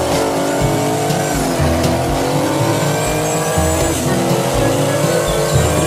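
A racing-car engine sound effect revving, its pitch slowly rising and falling, with tyre squeals.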